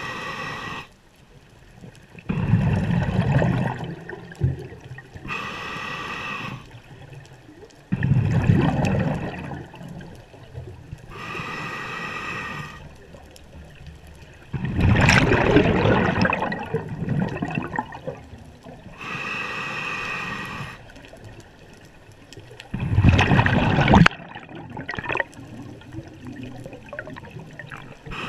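Scuba breathing heard underwater through a diver's regulator: a short hissing inhale with a faint whistle, then a louder gurgling rush of exhaled bubbles, repeating four times at a slow, even pace.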